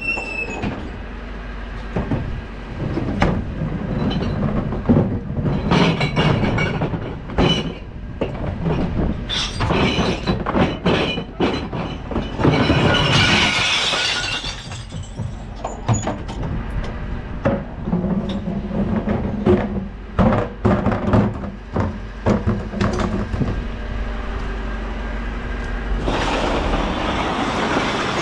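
Glass bottles and jars crashing and clattering as household glass bins are tipped into the hopper of a Dennis Eagle Elite refuse truck, with repeated knocks from the bins and lift. The truck's engine hums steadily underneath. The biggest crash of glass comes about halfway through.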